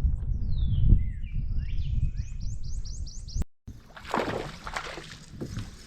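Birds calling, with sweeping whistles and a quick run of about six repeated notes, over a low rumble. After a brief cut about three and a half seconds in, water splashing and sloshing against a kayak.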